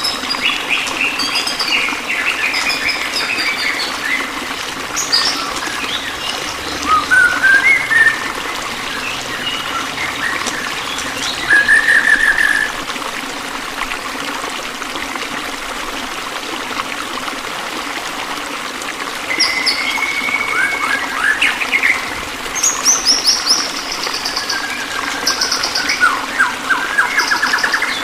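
Several songbirds singing and chirping: short trills, whistled phrases and rapid chirp runs, busiest in the last third, over a steady background of running water.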